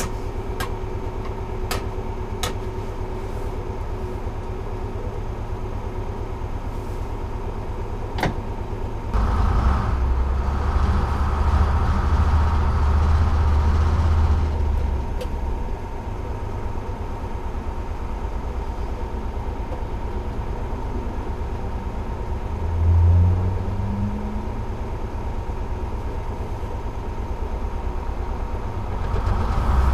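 Detroit Diesel 6-71 two-stroke diesel engine of a 1948 GMC Silversides bus running while the bus is driven, heard from the driver's cab as a steady low rumble. A few sharp clicks come in the first several seconds; the engine then pulls louder for about five seconds, and near three-quarters of the way through it briefly rises in pitch.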